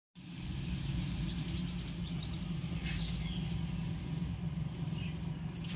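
Small birds chirping, with a quick run of short high chirps about a second in and a few scattered notes later, over a steady low rumble.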